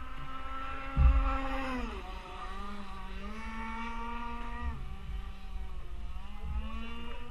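Radio-controlled petrol boat's RCMK two-stroke engine running at speed, its pitch dropping as the throttle eases about two seconds in, climbing again, easing off near five seconds and rising again near the end. Low wind rumble on the microphone, with a loud thump about a second in.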